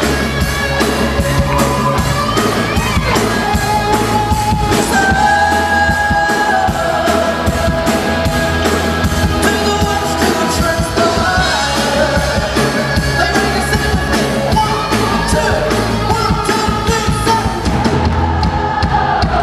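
Live pop band playing an upbeat mash-up with a male lead singer, over a steady drum beat.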